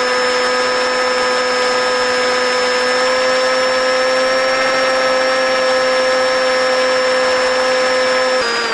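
Electric motor and propeller of a small RC park flyer running at steady throttle, giving a steady high whine. The pitch drifts up slightly, then steps down just before the end as the throttle is eased.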